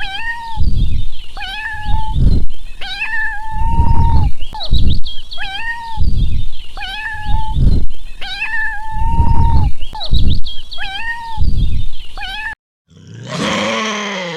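Domestic cat meowing over and over, about once a second, some meows drawn out longer, with heavy low rumbling noise beneath. Near the end the meowing cuts off suddenly and a different, lower groaning animal call begins.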